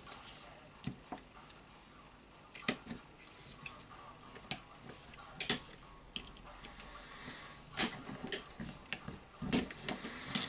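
Scattered sharp metal clicks and taps of circlip pliers gripping and working a retaining ring on the greasy front barrel of a Hitachi H45MRY demolition hammer.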